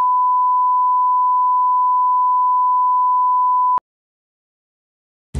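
Steady 1 kHz test tone, the reference beep played with colour bars, cutting off suddenly about four seconds in and followed by silence.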